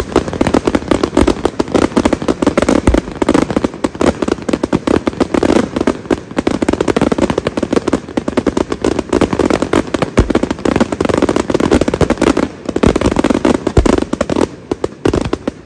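Fireworks display firing a rapid, near-continuous barrage of bangs and crackles, shells going up and bursting one on top of another, tailing off near the end.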